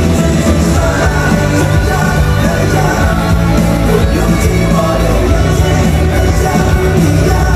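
Live pop-rock song played loud through a concert sound system: a male singer over a band with a heavy, steady bass.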